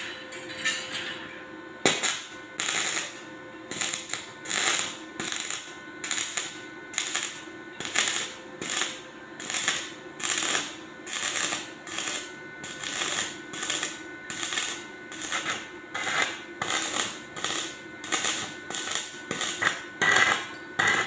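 Arc welding in short rhythmic bursts of crackle, about two a second, starting about two seconds in, over a faint steady electrical whine.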